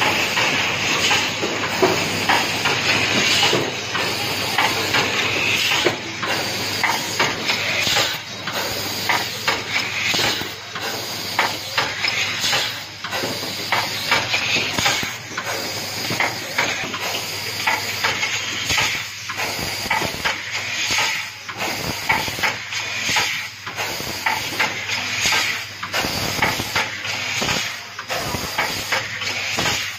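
Automated switch assembly machine running: a steady hiss of compressed air from its pneumatic actuators, broken by many quick clacks and knocks as the tooling moves and closes on the switch parts.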